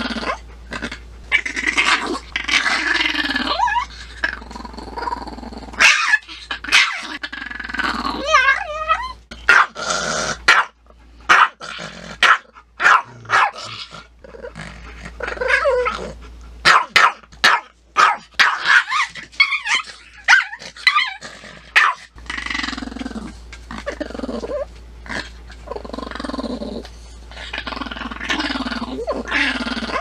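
A chihuahua growling, breaking into a run of short, sharp yapping barks through the middle stretch, then growling again near the end.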